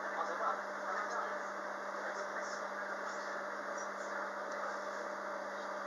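Steady interior hum of a Queensland Rail electric multiple unit carriage: a constant low tone under an even hiss.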